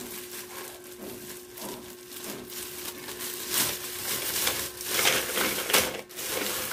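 Plastic wrapping crinkling and rustling as a bundle of storage-rack legs is unwrapped, getting louder and busier in the second half, with the legs knocking and clattering as they are spread into a plastic crate near the end.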